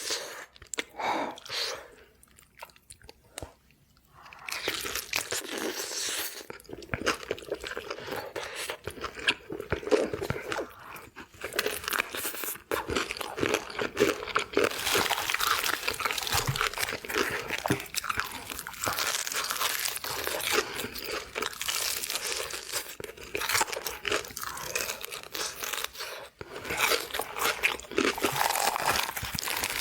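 Crispy fried chicken being bitten and chewed: dense crunching and crackling, with a quieter pause about two to four seconds in.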